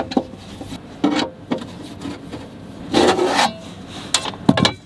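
A few short scrapes and clicks as the front cover is worked off a Victron Titan 48-volt battery charger, the longest scrape about three seconds in.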